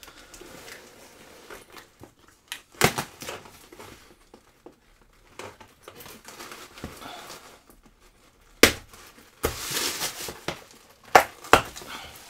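Packing tape being cut and ripped off a cardboard box, with cardboard flaps rustling and tissue paper crinkling. There are a few sharp rips, and the loudest come in the last few seconds.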